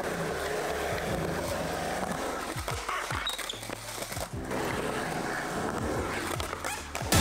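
Skateboard wheels rolling on a concrete skatepark, with a few clacks of the board in the middle and a sharp, loud clack near the end. Music plays underneath.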